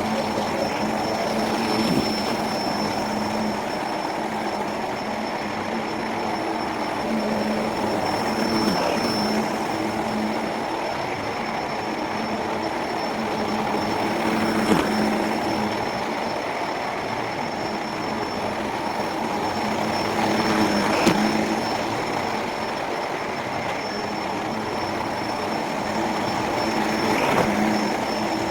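Electrolux Precision vacuum cleaner running steadily, sped up to four times speed, with a constant motor hum and a thin high whine. The level swells briefly about every six seconds.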